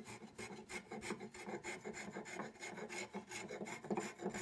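Metal spokeshave cutting dense osage orange hardwood in quick, short repeated strokes, its blade scraping off shavings.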